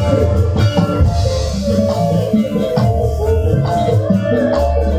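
Amplified Javanese gamelan music for a lengger dance, with drums and a steady bass line, a woman singing over it into a microphone.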